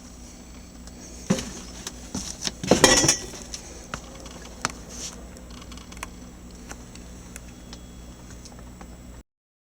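A few sharp clicks and light rattles, like objects being handled, clustered in the first half, over a faint steady hum. The sound cuts off suddenly near the end.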